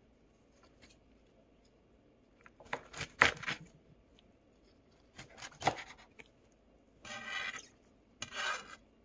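Chef's knife chopping through a bundle of soaked bracken stems on a cutting board, in two short bursts of strokes starting about three seconds in. Near the end come two longer scraping, rubbing sounds as the cut stems are moved across the board.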